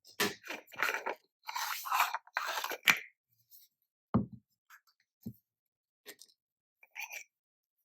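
Unboxing handling noises: about three seconds of scraping and rustling of packaging, then a few separate soft knocks and light clicks as pieces are handled and set down.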